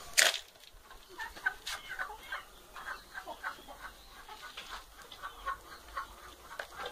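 Hens clucking at the feed with many short, repeated calls, and one sharp knock just at the start.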